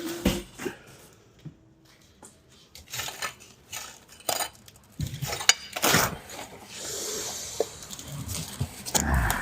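Hard clattering and knocking from the old porcelain toilet being moved or falling: a series of sharp impacts, a steady hiss for a couple of seconds late on, and a heavy thump near the end.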